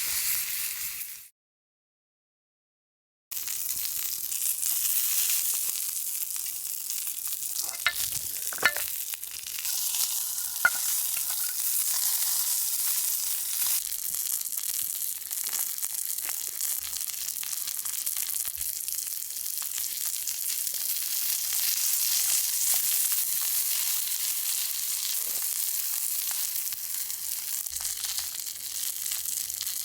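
Thick wagyu steak sizzling on an iron griddle plate over an open campfire: a steady high frying hiss with a few sharp clicks about a third of the way in. The sound cuts out completely for about two seconds near the start.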